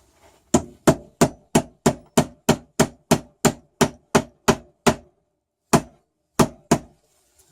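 Hammer tapping a cap into the head of a cap screw: a steady run of about fourteen sharp taps, roughly three a second, then a short pause and three more taps.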